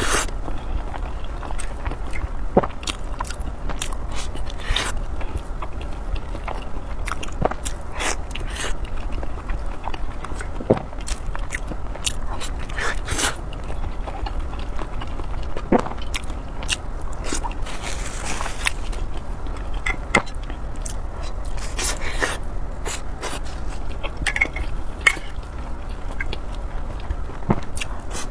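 Close-miked eating: a person chewing and biting food with irregular wet mouth clicks and small crunches.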